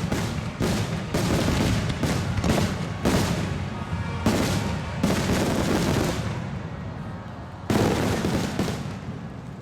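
Aerial firework shells bursting in a rapid volley, many booms and bangs close together with echoing rumble between them, a last sharp burst near the end, then the sound dies away.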